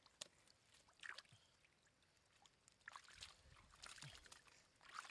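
Faint sloshing and a few short splashes of shallow muddy water as a hand gropes in it for fish.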